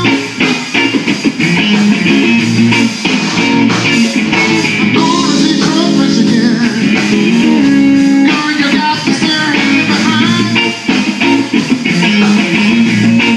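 Live blues band playing: electric guitar lead with bending notes over bass guitar and drums.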